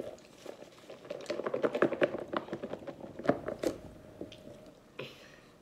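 Quick light clicks and taps of paper food containers and utensils being handled during a meal, densest in the middle and tailing off, over a faint steady hum.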